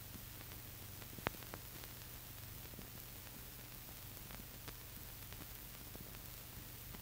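Steady hiss and low hum with scattered faint clicks and crackles, one sharper click about a second in: the background noise of a soundless archival film transfer, with no vehicle sound.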